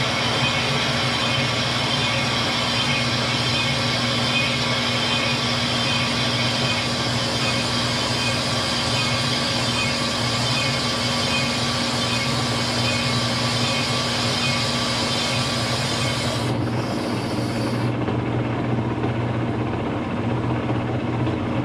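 Metal lathe running steadily with a large piston casting spinning in the chuck while the piston-ring grooves are cut: a steady machine hum with a hiss over it. About sixteen seconds in, the highest part of the hiss drops away.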